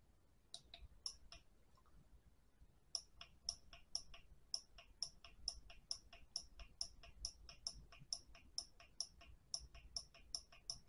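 Faint clicks of the portable LED work light's push-button switch being pressed over and over, a few at first, then after a short pause a steady run of about two clicks a second, stepping the light through its warm-to-white colour settings.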